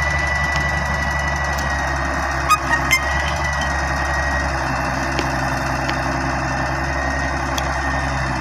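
Diesel engines of an excavator and tractor running steadily, with a few sharp knocks about two and a half to three seconds in.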